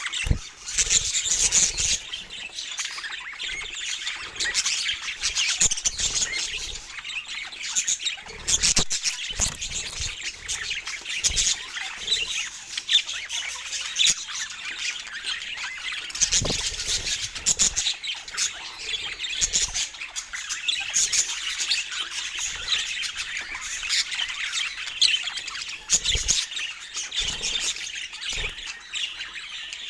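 Budgerigars chattering and chirping continuously, a dense warbling chatter with scattered short knocks mixed in.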